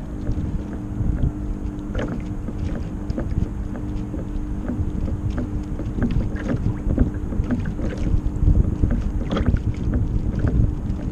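Kyosho Seawind RC sailboat under sail, heard from a camera on its deck: small waves slap and splash against the hull over and over, wind buffets the microphone, and a steady low hum runs underneath.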